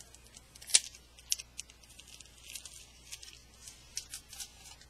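Clear sticky tape being peeled off the back of an iPod, crackling in short sharp snaps, with one louder snap a little under a second in.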